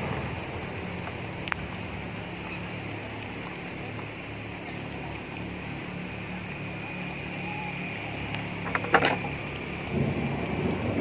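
Outdoor background: a steady low hum with a faint high-pitched band over it, one sharp click about a second and a half in and a quick cluster of clicks near the end.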